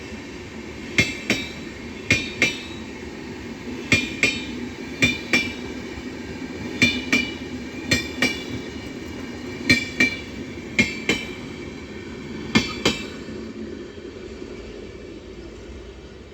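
Passenger coaches of an express train rolling past over a rail joint: sharp wheel clacks in pairs, one pair per bogie, in a regular rhythm over a steady rumble. The clacks stop about 13 s in and the rumble fades as the end of the train goes by.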